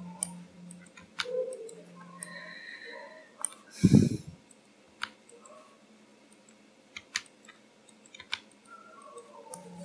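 Computer mouse button clicks and keyboard key presses, single and irregular, with one loud dull thump about four seconds in.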